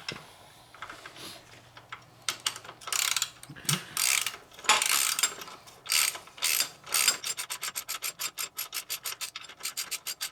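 Hand ratchet clicking as a bolt is wound in: longer runs of clicks at first, then quick, short back-and-forth strokes, several a second, near the end.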